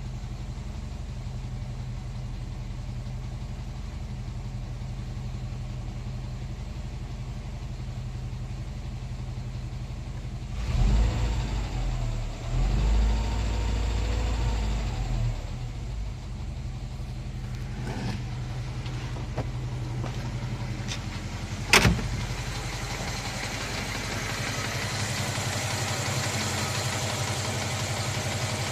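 Moskvich 2140's UZAM four-cylinder engine idling with the knock that is under investigation. It is revved up twice about a third of the way in and settles back to idle. A single sharp click comes about two-thirds of the way through.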